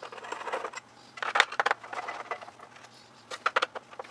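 Screws being taken out of a TV's base with a screwdriver: irregular small metallic clicks and rattles, coming in three short clusters.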